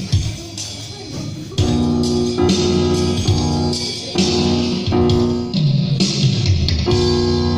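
Band music: guitar chords struck and held in repeated blocks, with bass underneath, starting loudly about a second and a half in.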